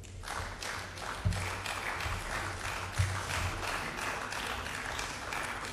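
Audience applauding: many hands clapping in a dense patter that starts just after the beginning and keeps on, with two dull low thumps about a second and three seconds in.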